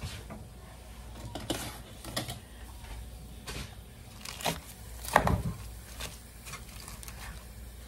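A spatula stirring and turning chopped raw cabbage in a pot, with a few scattered knocks and rustles against the pot; the loudest knock comes about five seconds in.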